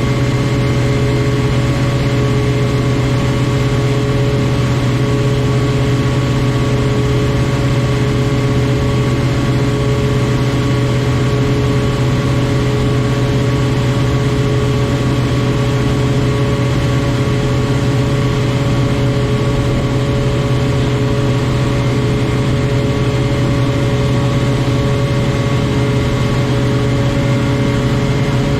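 Claas Lexion 420 combine harvester running steadily: a constant low drone with several steady whining tones above it, holding the same pitch throughout.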